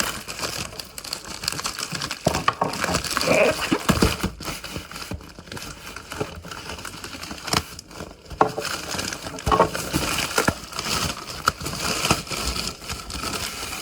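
Mail parcel packaging being opened by hand: irregular crinkling and rustling, with some tearing and small clicks.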